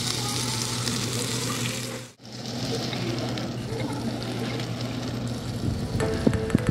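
Jeju black pork sizzling as it grills: a steady frying hiss that drops out for a moment about two seconds in. A few sharp clicks come in near the end.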